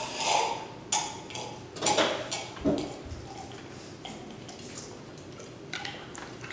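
A handful of light knocks and clicks from a drinking glass being fetched and handled in a kitchen.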